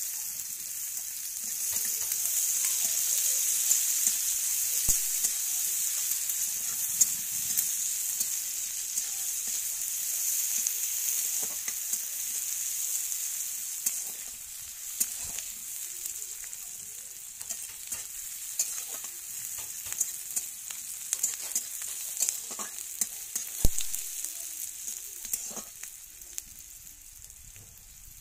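Freshly added chopped onions and dried red chillies sizzling in hot oil in a metal kadai, stirred with a flat metal spatula that scrapes and clicks against the pan. The sizzle is loudest in the first half and dies down toward the end.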